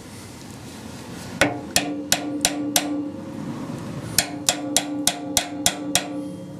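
A hammer tapping on the MGA's front suspension metalwork to work the upper trunnion into place: two runs of quick, even taps, five and then seven, about three a second, each leaving a short metallic ring.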